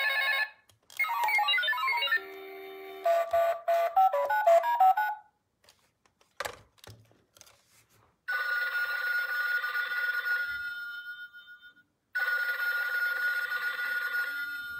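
A short musical jingle of quick notes, then a telephone ringing twice, each ring about two seconds long with a pause of about two seconds between them.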